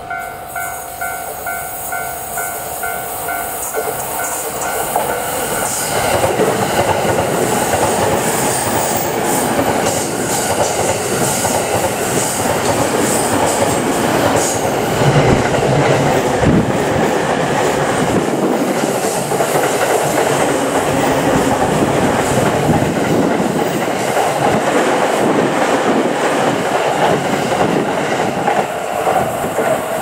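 Level-crossing warning bell ringing with a steady two-beats-a-second clang. From about six seconds in, a train passes close by, a loud continuous rumble and rush of wheels on rails that covers the bell.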